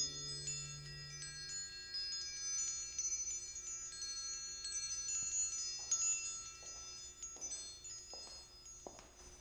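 Chimes ringing: many high, bell-like tones overlap and sustain, while the low notes of the background music die away in the first two seconds. Faint soft rustling noises come in near the end.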